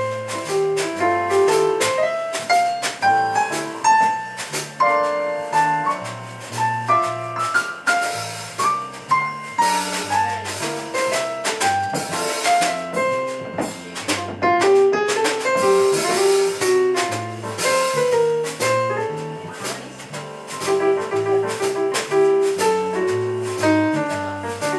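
Live band playing: a keyboard carries a running melody over electric bass lines, with drums and cymbals keeping time.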